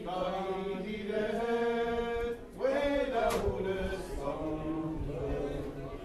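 A group of people singing together unaccompanied, holding long drawn-out notes, with a short pause about halfway before the next phrase.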